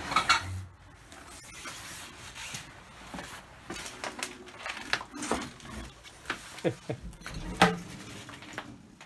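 Footsteps with irregular knocks and scrapes as a person moves over a debris-littered floor and past a door. The sharpest knocks come just after the start and about seven and a half seconds in.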